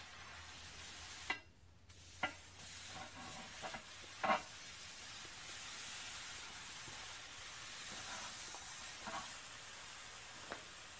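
Oxy-acetylene torch flame hissing steadily. The hiss breaks off for under a second about a second in, and a few sharp clicks and knocks cut in over it.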